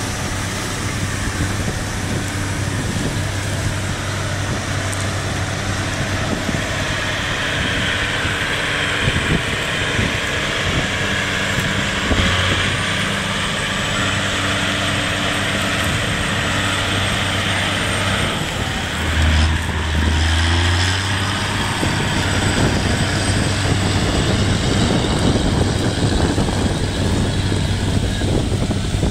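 John Deere 9420 tractor's 450 hp diesel engine running steadily under load while it pulls an air seeder through stubble. A hiss rides over the engine and is strongest in the middle as the rig passes close by. There is a brief low rumble about two-thirds of the way in.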